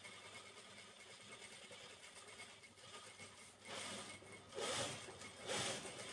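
Sewing machine stitching curtain fabric: a faint steady hum, then three short noisy bursts in the second half.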